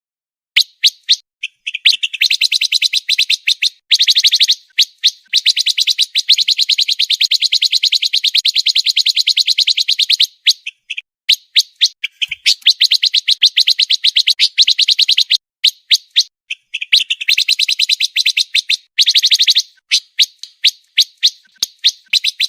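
A pancawarna songbird singing fast, tightly packed trills of high chirping notes. The song comes in long runs, with short breaks every few seconds.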